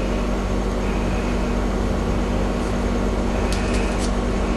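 Steady mechanical hum with hiss, with a few faint ticks about three and a half seconds in.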